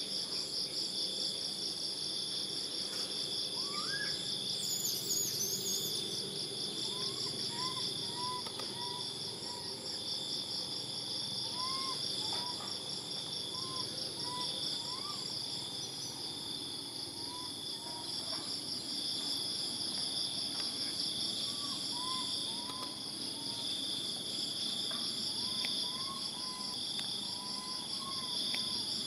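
Steady insect chorus, a continuous high-pitched trilling at several pitches, with faint short chirps recurring over it.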